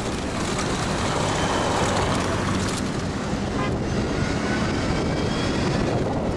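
Steady engine and road noise of a moving tour bus, heard from its open upper deck, with a low engine hum beneath.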